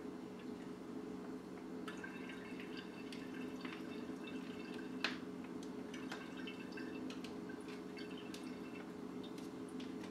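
Liquid yeast squeezed from a smack pack dripping and trickling into a glass jug of cooled wort: small wet drips and ticks, with one sharper click about five seconds in, over a steady low hum.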